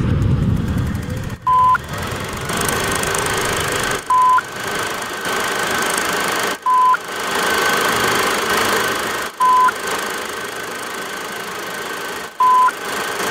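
A short, loud electronic beep at one steady pitch, repeated five times at about two-and-a-half-second intervals, over a steady mechanical whirring hiss that drops out for an instant just before each beep.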